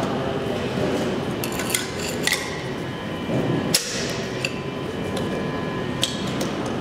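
Metal hand tool clicking and scraping against an old Flohr-Otis elevator call-button faceplate as it is worked loose from the wall, with a few sharp metallic clinks, the loudest nearly four seconds in, over a steady background hum.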